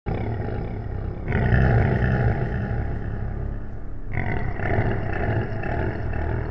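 Deep, rough growling of a beast, a monster sound effect for a dogman, freshly attacked about a second in and again about four seconds in.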